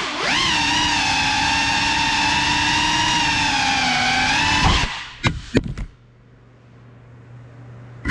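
Brushless motors and propellers of a Cinelog 35 FPV cinewhoop drone whining at a steady pitch, then cutting out about five seconds in with a few sharp knocks as it crashes. After that only a faint low hum remains.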